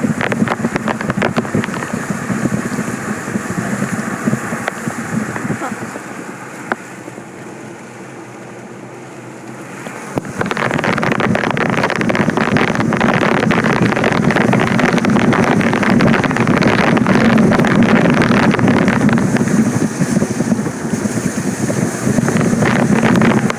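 A vehicle driving, with loud road and rushing-air noise and wind buffeting the microphone. The noise eases a few seconds in and swells louder again about ten seconds in.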